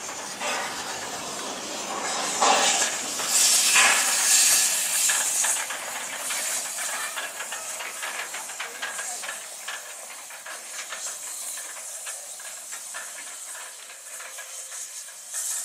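Steam locomotive standing still and hissing steam. The hiss is loudest in bursts a few seconds in, then settles to a lighter hiss with rapid fine clicking, with one more short burst near the end.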